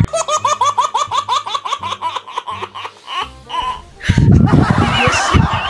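A baby laughing hard: a quick string of high, rising-and-falling giggles, several a second, over a low steady music note. About four seconds in it cuts to louder, noisier background sound.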